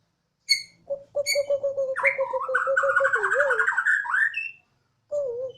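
Bornean white-rumped shama (murai batu) singing: two sharp whistled notes, then about three seconds of fast pulsing notes with a low wavering line under higher warbling, ending in a rising slur. After a short pause there is one more brief falling phrase near the end. This is the siren-like song that keepers call 'odong-odong'.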